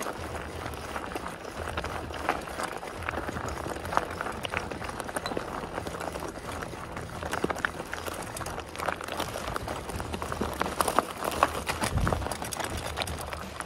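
Mountain bike rolling downhill over a loose wood-chip and gravel trail: tyres crunching and the bike rattling, a continuous clatter of many small clicks and knocks.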